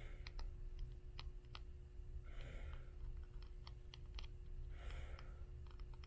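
Fingernails tapping on old hardcover books in quick, irregular clicks, with two breathy exhales close to the mic, about two and a half and five seconds in.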